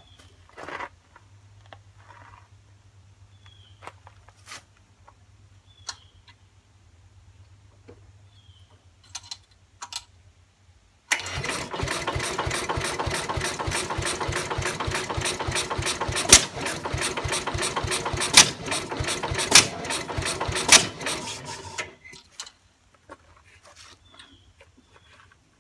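A 1968 Sears Suburban 12's Tecumseh HH120 single-cylinder engine being turned over in a start attempt, now that its new solid-state ignition gives spark. It runs in suddenly about eleven seconds in with a fast, even pulsing and several louder pops, and stops abruptly about eleven seconds later.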